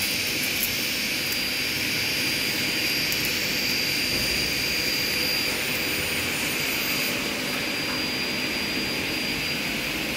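Steady machinery drone in a workshop: a constant hiss and hum with a faint high whine that fades out about seven seconds in.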